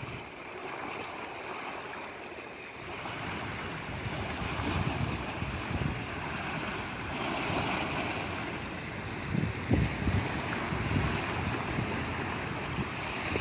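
Ocean water washing and surging, with gusts of wind buffeting the microphone.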